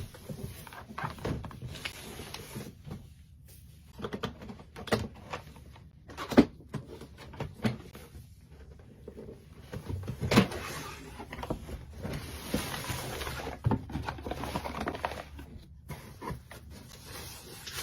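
A cardboard box being opened and its packaging handled: scattered knocks and thumps, and a stretch of rustling and scraping about two-thirds of the way through.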